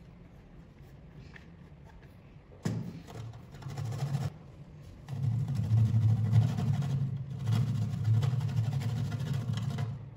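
Almond being grated on a stainless steel box grater: repeated scraping strokes. Faint for the first two and a half seconds, then the strokes start, and they grow steadier and louder from about five seconds in.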